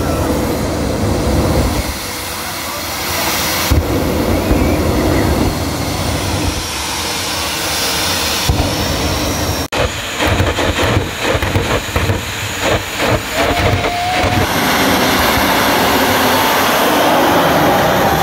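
Jet engines of jet-powered drag cars running loud at the starting line, firing afterburner blasts. A rapid string of pulsing blasts comes in the middle, and a high turbine whine sounds over the roar near the end.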